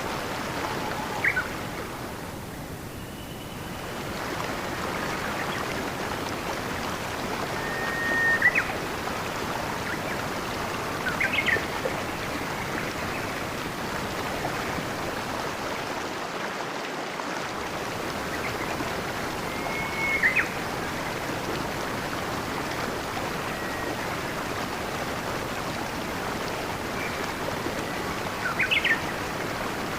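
Steady rush of flowing stream water, with a small bird chirping about five times: short, high, sharp calls, some led in by a brief held note.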